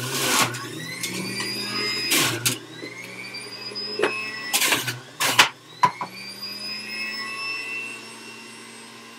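Breville Juice Fountain centrifugal juicer running, with loud grinding bursts as pieces of fruit and beet are pushed down the chute onto the spinning cutter. After each burst the motor's whine rises back up in pitch. Near the end it settles to a steady, quieter hum, running empty.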